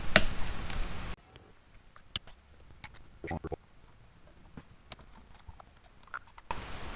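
Scattered light clicks and taps of small metal carburetor parts being handled on a cloth-covered bench as a Honda Shadow VT500C carburetor is taken apart, with one sharper click at the very start.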